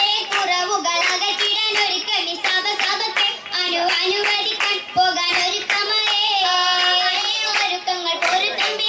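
Oppana performance: girls' voices singing a Mappila song, with the dancers' hand claps keeping a steady, rhythmic beat. About six seconds in, the voices hold one long note.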